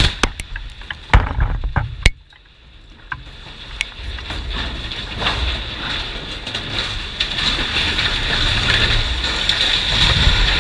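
Explosive cutting charges firing on a 300-foot structural steel water tower: several sharp blasts in the first two seconds. After a short lull, a rumble builds from about three seconds in and grows louder toward the end as the tower topples and its steel tank and frame crash to the ground.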